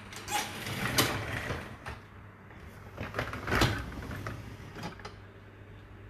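Dishwasher racks being moved, rattling and clattering with their dishes and cutlery, in two bursts of about a second and a half each.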